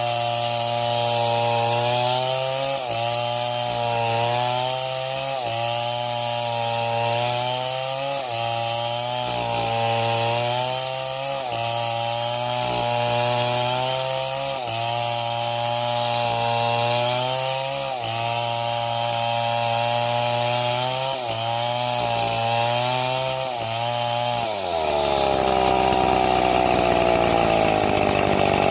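Two-stroke chainsaw cutting wood under load. The engine note rises and settles back about every second and a half, then drops to a lower pitch about 25 seconds in and stays down.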